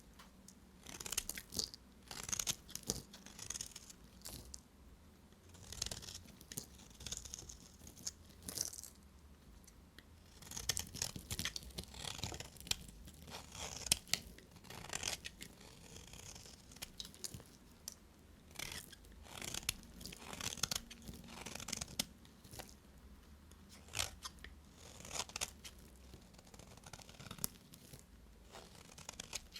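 Bars of dry soap being cut with a knife: repeated crisp crunching and crackling strokes, a cluster every second or two.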